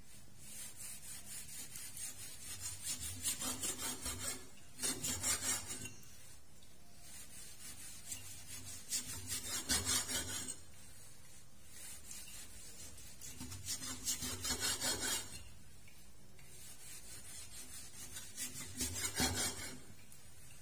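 Cleaver slicing through pork belly on a wooden chopping block: about five spells of quick back-and-forth rasping strokes, each lasting a second or two, with short pauses between the cuts.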